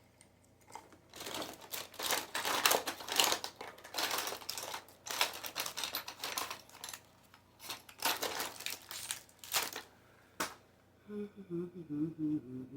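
Rummaging through makeup: plastic cases, compacts and packaging clattering and rustling in quick, irregular bursts, ending with one sharp click.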